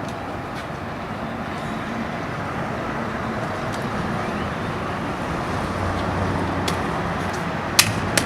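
Steady road traffic noise, swelling slightly, with two sharp clicks near the end.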